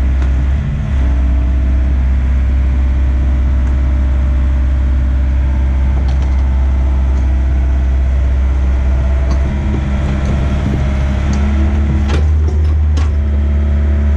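Yanmar mini excavator's diesel engine running under load while the machine tracks and works its blade and bucket through dirt, the engine note changing about two-thirds of the way in. A few sharp metal clanks near the end.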